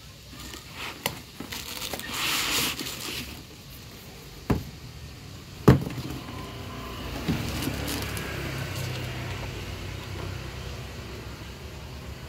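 Packaging being handled: cardboard and foam rustling and scraping, with two sharp knocks about four and a half and six seconds in, the second the loudest. A low steady rumble runs under it from about six seconds on.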